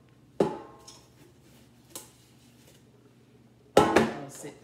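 Air fryer basket knocking against the fryer and counter as it is handled: a sharp knock with a short ring about half a second in, a light click near the middle, and two loud knocks close together near the end.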